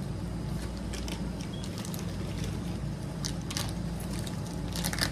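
Plastic packaging crinkling and tearing in a few short, scattered crackles as a package is opened, over a steady low background hum.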